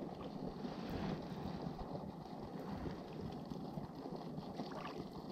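Wind on the microphone over small lake waves lapping against shore rocks, a steady low rush, with a few light ticks near the end.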